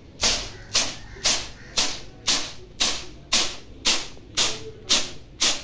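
Grain being winnowed on a plastic tray: each toss and catch of the grain gives a short swish, about two a second in a steady rhythm.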